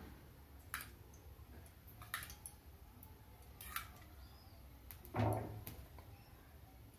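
A few faint clinks of a steel spoon against a small steel cup as ghee is spooned into a nonstick frying pan. About five seconds in comes a louder knock as the pan is moved on the gas stove's grate.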